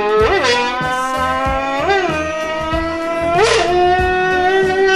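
A voice buzzing through a crushed aluminium soda can to imitate a Lamborghini engine. It is one sustained, horn-like buzzing tone that swoops up in pitch and settles back three times, like an engine revving through gears.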